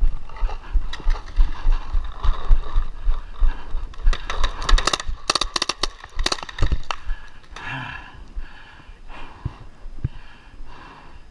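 Tippmann 98 Custom paintball marker, fitted with a response trigger, firing rapid strings of shots in the middle. It is preceded by dull low thumps, which are the player's running footsteps and gear bumping the head-mounted microphone.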